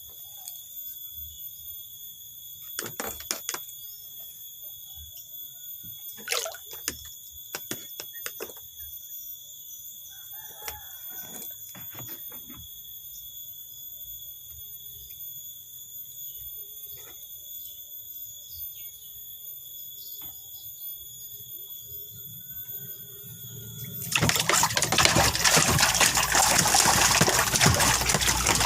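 Steady high-pitched tones and scattered clicks over a quiet background, then about three-quarters of the way through a loud rush of splashing water starts suddenly and carries on.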